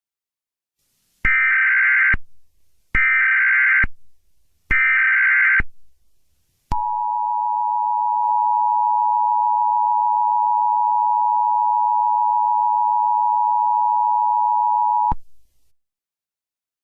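Emergency Alert System alert tones: three short bursts of SAME header data (a buzzing, warbling digital chirp), then the EAS two-tone attention signal (853 and 960 Hz together) held steady for about eight seconds before cutting off abruptly.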